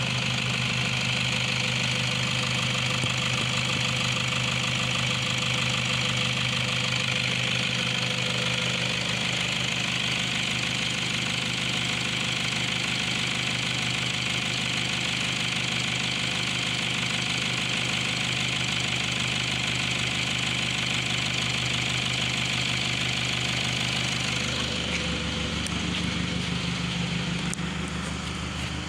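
Toyota Hilux 3.0-litre four-cylinder common-rail turbo diesel (1KD-FTV) idling steadily with its diesel clatter, heard over the open engine bay. Near the end it sounds duller as it is heard from the open driver's door.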